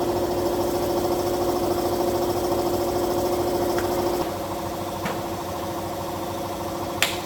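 Motorcycle engine running steadily at idle, its note dropping slightly about four seconds in, with a sharp click near the end.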